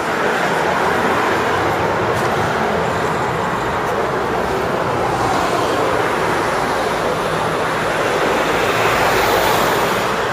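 Steady city street traffic noise, swelling as a vehicle passes close near the end.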